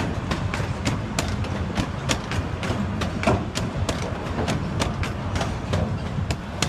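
Wheels of a moving narrow-gauge train clicking sharply over rail joints, about three clicks a second, over a steady low rumble from the rolling cars.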